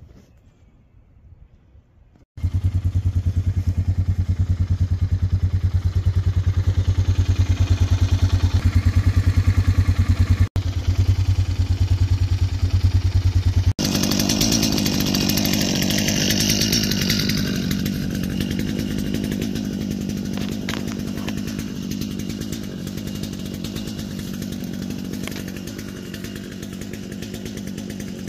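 Small gasoline engine running steadily, with no revving or cutting under load. It starts abruptly about two seconds in, breaks off sharply twice, and from about fourteen seconds on grows slowly quieter.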